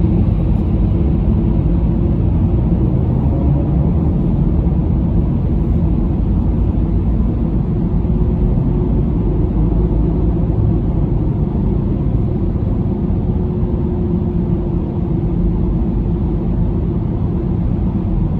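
Car driving at steady speed on an expressway: a steady low rumble of engine and tyre road noise, heard from inside the car.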